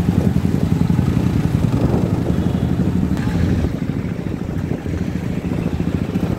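Motorcycle engine running close by, a low pulsing rumble that eases off somewhat a little past halfway.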